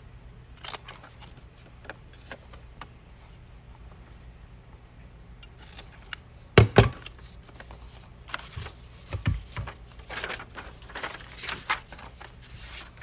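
Paper being handled and rustled on a work table while hinged paper pockets are assembled, with small taps throughout. A few sharp knocks on the table come about halfway through and again a few seconds later.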